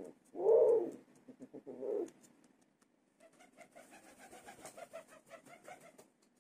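Pigeon cooing in a few loud phrases over the first two seconds, the loudest about half a second in. From about three seconds in comes a quieter run of quick, evenly repeated notes.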